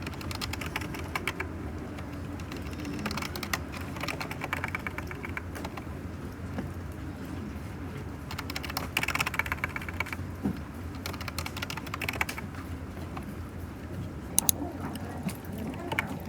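Typing on a computer keyboard in several short runs of rapid key clicks, with pauses between them, over a steady low hum.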